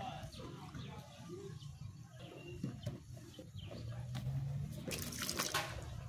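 Thick green leaf puree poured from a plastic bowl into a pot of hot soup, splashing and plopping into the liquid. About five seconds in, a brief hissing noise is the loudest sound.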